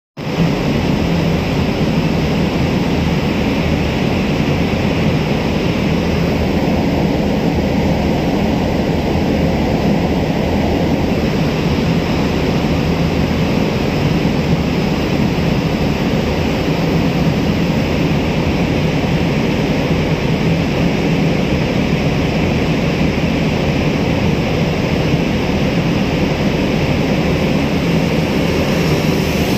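Large container ship and its escort tug passing close: a steady low engine rumble under an even wash of noise, unchanging throughout.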